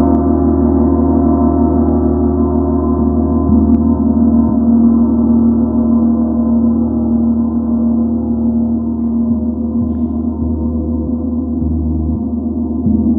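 An 85 cm Real Gong symphonic gong ringing on after a felt-mallet stroke: a dense wash of many sustained tones that slowly fades. Near the end the mallet strikes it again softly and the sound swells a little.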